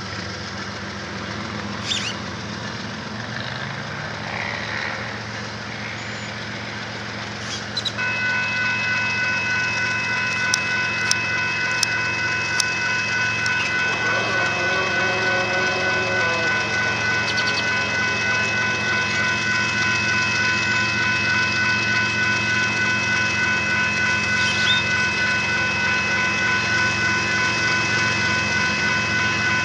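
Union Pacific diesel locomotives approaching with their engines running low. About eight seconds in, the locomotive horn comes on, a chord of several steady tones held unbroken.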